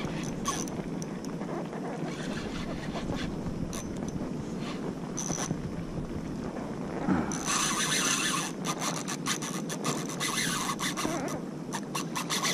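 Rubbing and scraping sounds on a fishing kayak over a steady wind-and-water noise, growing louder and busier with many sharp clicks about halfway through.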